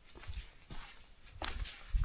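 Footsteps of a hiker walking along a rainforest trail, about four steps in two seconds.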